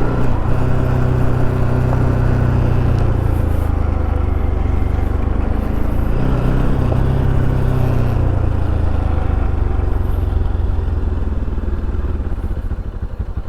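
Motorcycle engine running at a steady pace while riding, with wind and road noise rushing over it. The engine note eases off in the last second or two.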